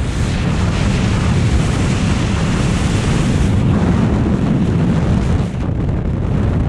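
Freefall airflow rushing and buffeting over a helmet-mounted camera's microphone: a loud, steady roar of wind with most of its weight low down.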